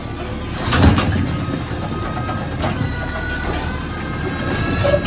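Natural-gas-powered automated side-loader recycling truck working its grabber arm: the engine runs under load with a thin hydraulic whine, and a loud clunk about a second in, with a lighter knock a couple of seconds later, as the arm clamps a wheeled recycling cart and lifts it up to tip into the hopper.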